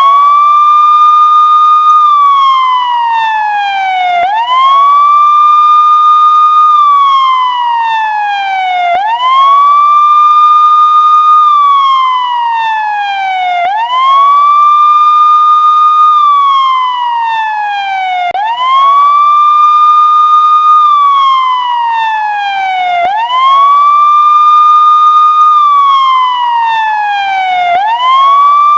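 Electronic police siren sounding a slow wail: each cycle sweeps quickly up in pitch, holds the high note for about two seconds, then slides slowly back down. The cycle repeats about every four and a half seconds.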